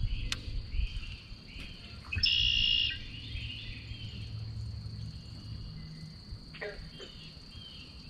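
Insects droning steadily with a bird singing short repeated phrases over them. A louder, harsher sound a little over two seconds in lasts under a second.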